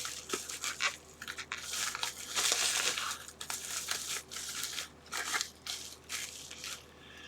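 Plastic packaging being handled and opened: irregular crinkling and rustling with scattered small clicks.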